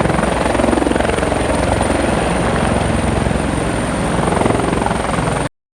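Helicopter flying overhead: its rotor blades chop in fast, even pulses over a thin high whine, and the sound cuts off suddenly near the end.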